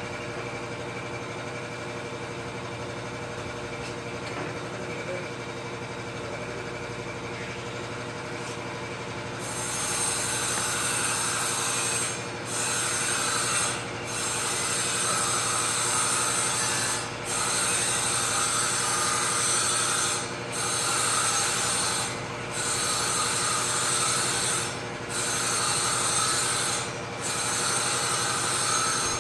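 Steady machine hum, then about a third of the way in a louder rasping hiss, like a power tool working a surface, starts up and runs in stretches of two to three seconds with short breaks between them.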